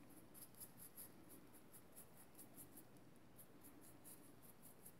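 Faint, quick scratchy strokes of a stiff paintbrush scrubbing wet paint into the crevices of a polymer clay pendant, several strokes a second.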